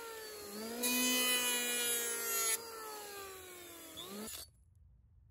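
Makita electric hand planer running over redwood boards, shaving off dried glue. Its motor whine dips in pitch as the blades bite, with a loud cutting rush for about two seconds. The sound cuts off abruptly near the end.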